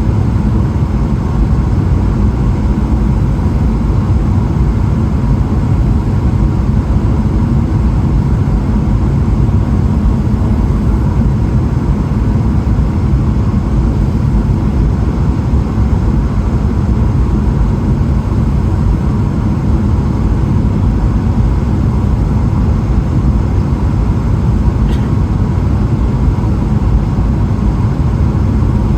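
Steady engine and airflow noise inside the cabin of a Boeing 777-300ER in flight, its GE90 engines running as a constant low rush with a faint steady tone above it.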